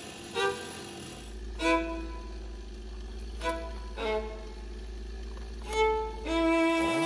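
Solo violin music, a slow line of separate notes.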